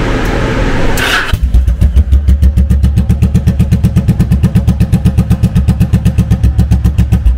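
Yamaha cruiser's air-cooled V-twin firing up about a second in and then idling with a steady, loud loping beat. It runs through straight-through Cobra pipes with no dB-killer baffle fitted yet.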